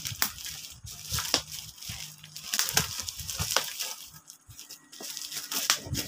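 Plastic bubble wrap around a parcel crinkling and crackling as the package is gripped and turned over by hand, in a run of irregular crackles.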